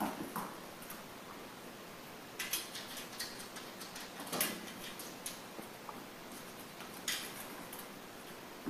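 A few light clicks and taps, scattered a second or more apart and loudest a little past the middle, over a faint steady hiss.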